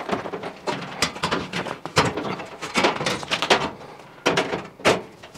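Steel back panel of a Logik tumble dryer being handled and fitted against the cabinet: a string of irregular sheet-metal knocks and rattles.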